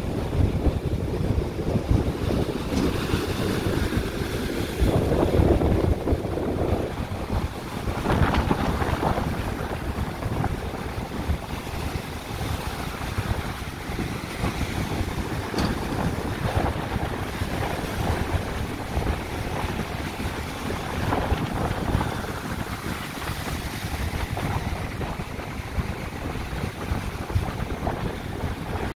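Storm waves on Lake Michigan crashing over a submerged pier and washing across flooded pavement, a continuous surf roar that swells louder about five seconds in. Heavy wind buffets the microphone with a low rumble.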